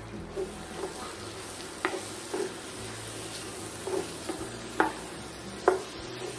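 A wooden spatula stirs shredded chicken and flour in a sizzling cast-iron skillet, knocking and scraping against the pan about six times over a steady frying hiss. The flour is being worked into the melted butter to make a roux.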